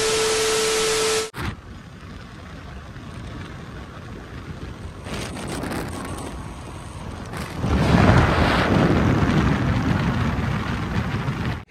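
A TV-static glitch sound effect, loud hiss with a steady beep, for just over a second, cutting off sharply. It is followed by wind rushing and buffeting the microphone of a moving motorcycle, growing much louder about eight seconds in.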